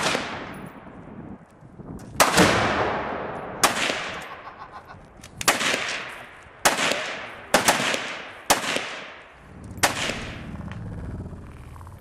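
Rock River Arms AR-15 rifle firing single shots in 5.56/.223, about eight of them at uneven gaps of roughly one to two seconds, each with a long echo fading away. The shooting stops near the end.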